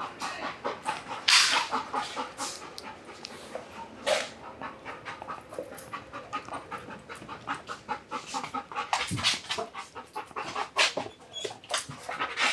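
A working K9 dog panting rapidly and steadily, with two louder sharp noises, about a second and a half in and about four seconds in.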